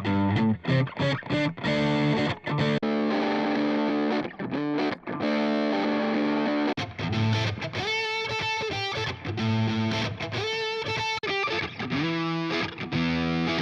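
Electric guitar played through a drive preset on an IK Multimedia TONEX MAX amp-modelling pedal, giving a distorted tone. It plays short, chopped chords at first, then longer ringing chords.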